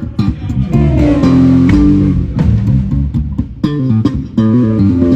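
Electric bass guitar played loud during a sound check: phrases of held and shifting notes, some sounding together, with a short break about four seconds in.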